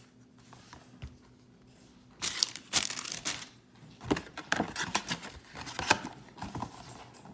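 Crinkly packaging, such as foil booster-pack wrappers and box plastic, being handled and rustled by hand. It starts about two seconds in and goes on in quick irregular crackles.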